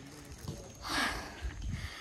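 A person's short breathy sigh about a second in, with a fainter breath near the end, over low wind rumble on the microphone.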